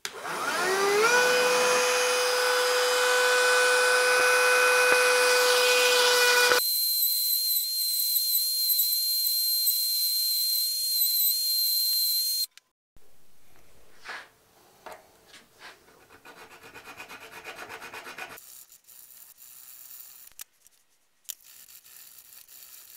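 Ryobi cordless rotary tool driven through a flex shaft, switching on with a rising whine and running at a steady pitch for about six seconds, then giving a higher, thinner whine that cuts off suddenly about halfway through. After that comes quieter scraping from a small flat file worked in strokes to enlarge the nailer part.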